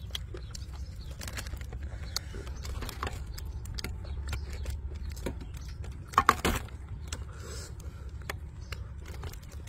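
Food being handled over a metal tray: small scattered clicks and rustles as fried fish is pulled apart and sauce is spooned on. A short cluster of sharp clinks a little past six seconds, a spoon knocking against the sauce bowl, is the loudest sound, over a steady low rumble.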